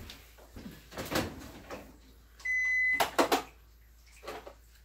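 A kitchen appliance gives a single electronic beep, one steady high tone of about half a second a little past the middle. Knocks and clatter of kitchen utensils come around it, loudest just after the beep.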